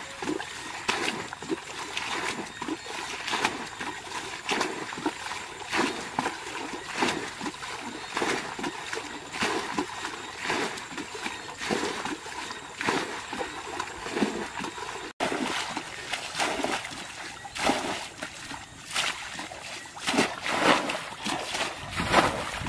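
Water being bailed out of a shallow muddy pool with a plastic bucket: a steady run of splashes, one about every three-quarters of a second, as the bucket scoops and the water is thrown out. The splashes grow louder near the end.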